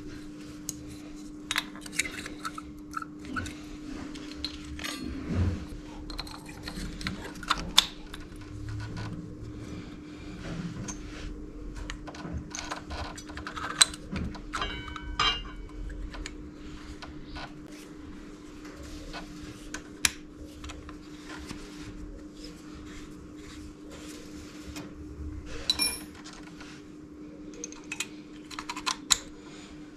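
Scattered metallic clinks, taps and rattles of brake pads and their hardware being handled and fitted into a motorcycle front brake caliper, over a steady low hum.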